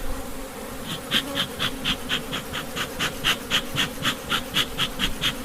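Honeybees humming steadily around an open hive, and from about a second in a bee smoker's bellows puffing rapidly, about four short hissing puffs a second, to smoke the bees off the frame edges.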